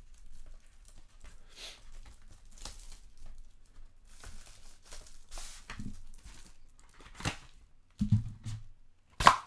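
A sealed box of trading cards being unwrapped and opened: wrapping tearing and crinkling in short scratchy strokes, then two knocks near the end, the second sharp and the loudest.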